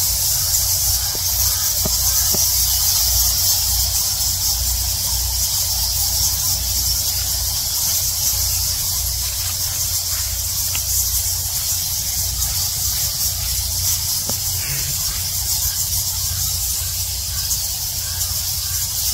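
A huge roosting colony of Geoffroy's rousette fruit bats in a cave, their massed squeaking and chattering blending into a steady high-pitched hiss.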